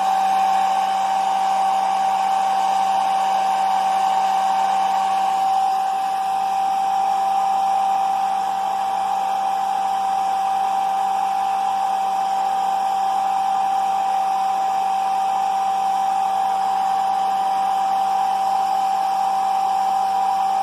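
A small electric motor running steadily, with a constant whine over a rushing air-like noise and a faint low hum.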